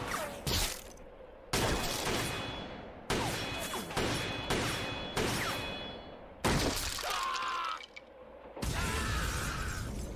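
Gunfire and impact sound effects from the anime soundtrack: about eight sharp shots and hits, each falling away with a ringing tail, as bullets strike a cyborg's steel body without harming him.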